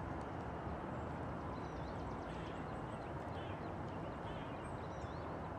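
Steady outdoor background rumble and hiss, with small birds chirping faintly now and then.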